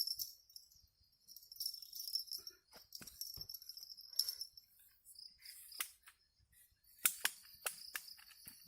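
Insects chirring steadily in a high band, with scattered sharp clicks and clinks, several close together about seven seconds in.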